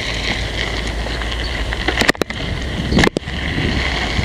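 Wind buffeting the camera microphone and tyres rolling on a dirt path while riding a mountain bike, a steady rushing noise. Two short sharp knocks break it about two and three seconds in.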